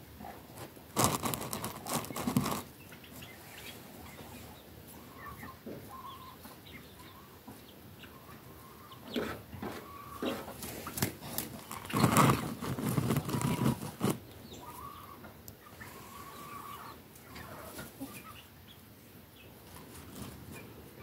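Chickens clucking in short, scattered calls, with two louder noisy bursts, one about a second in and another about twelve seconds in.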